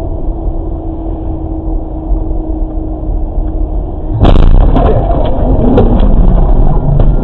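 Car road and engine noise inside the cabin, picked up by a dashcam while driving at highway speed: a steady low rumble that turns abruptly louder and rougher about four seconds in, with scattered clicks and knocks.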